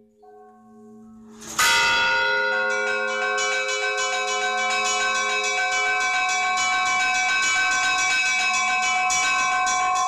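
Russian Orthodox church bells ringing (zvon). After faint humming tones, a loud strike about one and a half seconds in opens a dense peal of several bells struck in quick succession, ringing on continuously.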